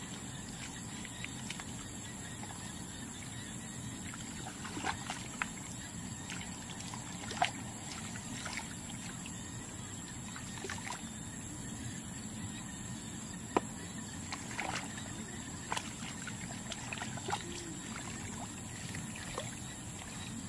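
Water sloshing and splashing in shallow water, with a dozen or so sharp clicks and knocks scattered through it, the two loudest about seven and thirteen and a half seconds in, over a steady hiss and a faint high tone.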